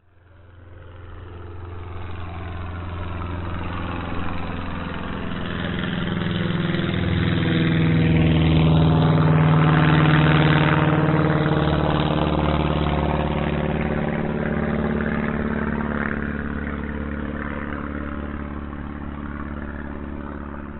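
Airplane flying low overhead: its engine grows louder to a peak about halfway through, then fades as it passes, the pitch dropping after the pass.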